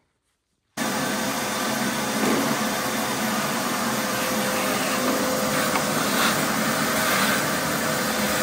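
Shop vacuum running steadily, its hose sucking up debris inside a snowmobile's belly pan; the loud, even rush with a faint motor whine cuts in abruptly about a second in.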